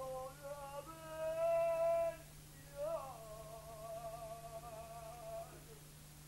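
A woman humming a slow tune, with sliding notes and two long held notes, fading out near the end.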